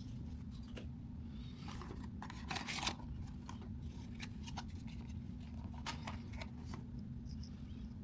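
Small clicks and rustles of objects being handled, with a denser, louder cluster about two and a half to three seconds in, over a steady low hum.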